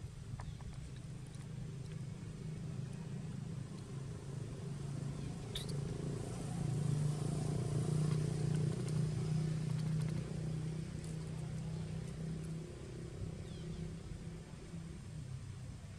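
A motor vehicle's engine running steadily as a low hum, growing louder about six seconds in and easing off after about ten seconds.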